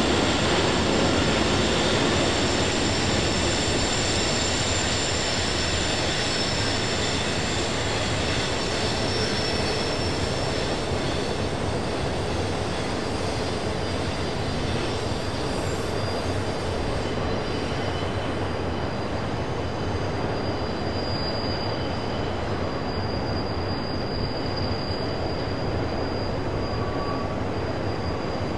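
Freight train rolling past, a steady rumble of wheels on rail with thin high-pitched squeals from the steel wheels. The sound eases off slowly.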